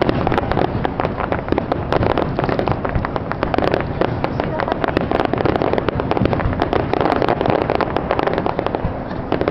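Fireworks display: a dense, unbroken run of bangs and crackles, many shells bursting at once.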